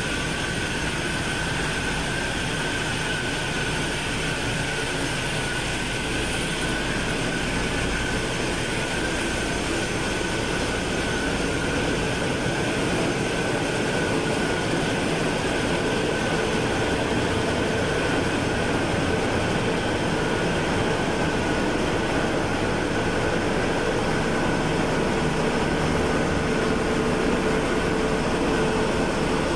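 Steady drone of diesel engines running in a ship's engine room, with a constant high whine above it. It grows somewhat louder partway through.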